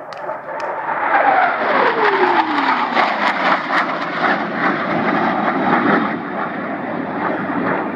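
Blue Angels F/A-18 Hornet jet making a low, fast pass. The jet noise builds quickly and stays loud, and a whine falls steadily in pitch over about two seconds as the jet goes by.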